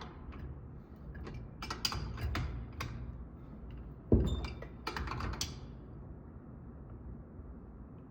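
Tools and metal fittings being handled while a flush valve is installed: bursts of quick clicks and clacks, with one sharp knock about four seconds in, then quiet handling.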